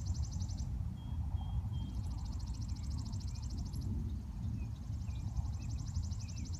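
Night insects trilling in a rapid, even, high-pitched pulse that stops and starts again in stretches, over a steady low rumble.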